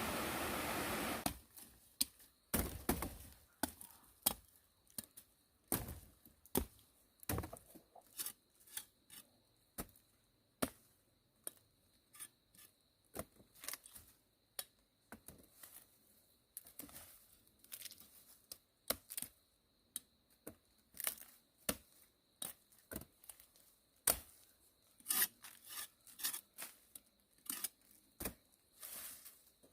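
Repeated chopping strokes with a blade, sharp and irregular at about one or two a second, some in quick pairs, typical of cutting up produce for pig feed. At the start a steady rushing noise cuts off after about a second.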